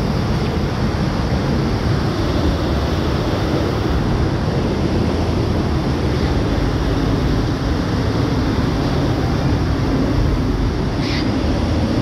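Steady rushing of a waterfall and mountain stream in a rocky gorge, an even roar with no break. A faint short click sounds near the end.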